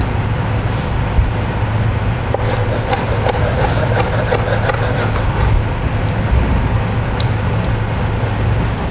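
Chef's knife chopping cooked lobster meat on a cutting board: a run of quick knocks in the middle, over a steady low hum.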